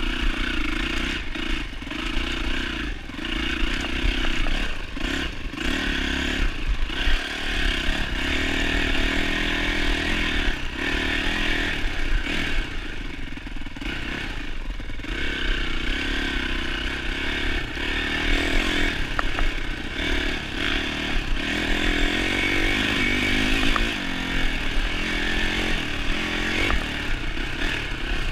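A 2007 Yamaha YZ450F's four-stroke single-cylinder engine being ridden hard. The revs rise and fall as the throttle is repeatedly backed off and opened again, and it runs steadier for stretches in the second half.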